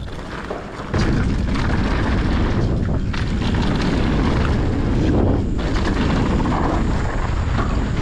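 Wind buffeting the microphone and tyre noise as a mountain bike sets off down a dirt trail. It starts abruptly about a second in and stays loud and steady.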